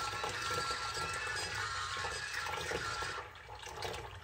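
Water from a tap running into a plastic basin of water, splashing steadily. About three seconds in the tap is turned down and the sound drops to a thinner trickle.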